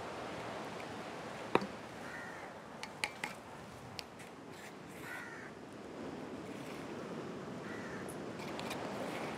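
Crows cawing several times, with a few sharp clicks and knocks from knife and utensil work, the loudest about a second and a half in, over a steady outdoor hiss.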